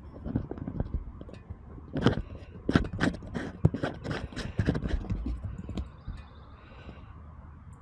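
Irregular scrapes and knocks from handling an action camera and its clamp mount right at the microphone, dying down about five and a half seconds in.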